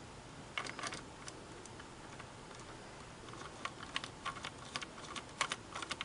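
Light, irregular clicks and taps of small parts being handled on a Singer 401A sewing machine: a few close together about half a second in, then a quicker uneven run from about three seconds on.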